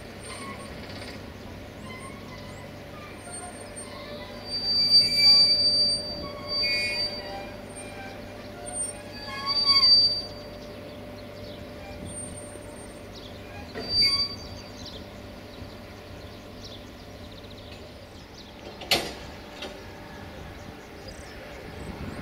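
Train wheels squealing against the rails as rail vehicles move slowly through the yard during shunting, in several separate squeals about 5, 7, 10 and 14 seconds in, over a steady hum. A single sharp click comes near the end.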